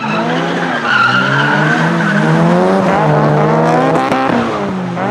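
A drifting car: an engine revving up and down under tyres squealing, starting abruptly and staying loud.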